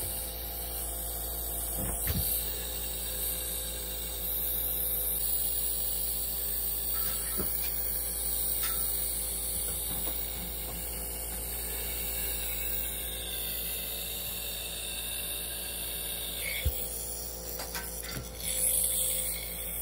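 Steady electrical hum in a small room, with a few faint soft knocks.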